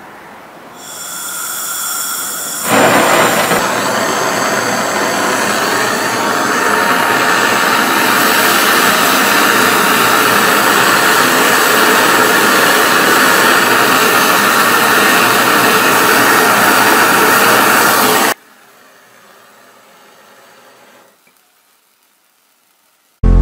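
Hand-held butane cartridge gas torch: a faint hiss for the first couple of seconds, then a loud, steady flame hiss for about fifteen seconds that cuts off suddenly.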